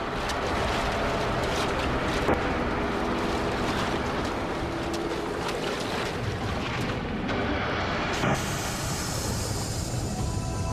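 Loud, steady wind and rough sea noise, as in a storm at sea, with a low droning rumble underneath. High sustained tones come in about eight seconds in.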